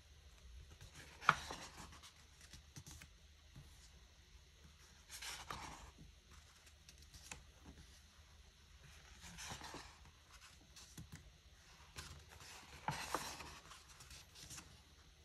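Pages of a photo book turned by hand, about four times, each a brief papery swish and rustle. The first turn ends in a sharp snap of paper.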